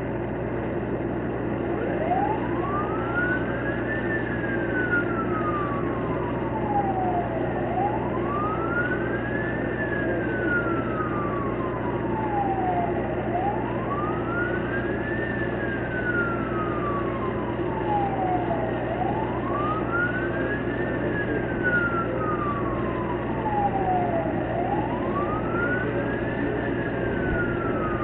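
Emergency vehicle siren wailing in a slow, repeated rise and fall, each sweep climbing for about two seconds and falling for about three and a half. It starts about two seconds in and goes through about five cycles over a steady background hum.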